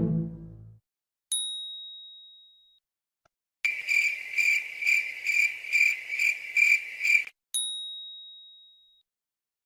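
Sound-effect bell tones: a single high ding that rings away, then a bell-like ringing that pulses about four times a second for nearly four seconds, then the same ding once more.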